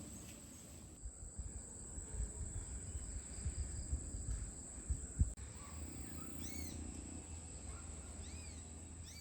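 Outdoor rural ambience: a bird gives short arched calls in two groups in the second half, over a steady high insect drone. In the first half there is a low rumble with soft thumps, ending in a sharper knock about five seconds in.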